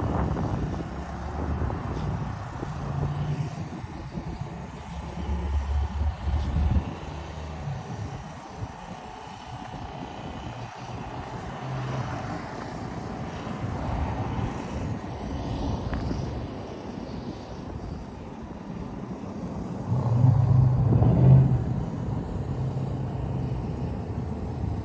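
Low rumbling noise that swells louder about five seconds in and again near the end.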